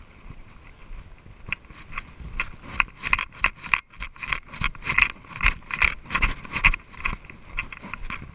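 Quick, uneven clicks and crunches, about three a second, from travel over a leaf-covered dirt trail. They build up about a second and a half in and are strongest through the middle.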